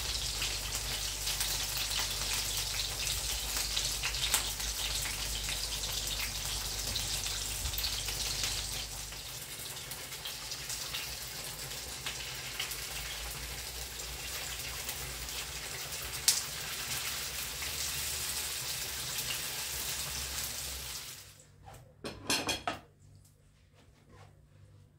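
Steady rain falling, a dense hiss with many small drop ticks, which stops abruptly about 21 seconds in. A brief rubbing noise follows.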